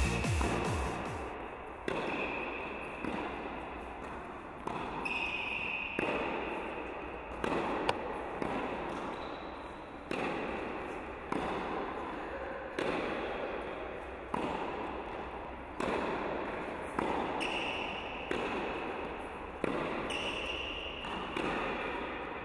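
Tennis ball struck by racquets in a rally, one sharp hit about every second and a half, each echoing in an indoor tennis hall. Electronic music fades out in the first second.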